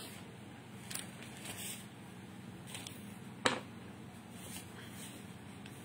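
Faint handling of a spiral notebook and pens on a table: small clicks and rustles, with one sharp tap about three and a half seconds in, over a steady low hum.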